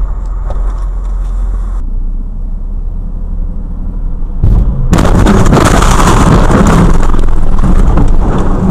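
Car driving, then a loud car crash about five seconds in, as a rear-end collision smashes the back of a hatchback, followed by several seconds of loud crash noise.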